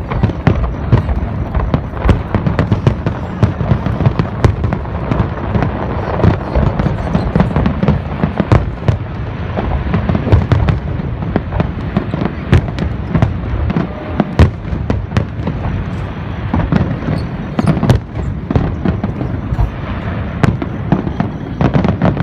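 Fireworks display in full barrage: many sharp bursts and bangs in quick succession over a continuous low rumble, with no break.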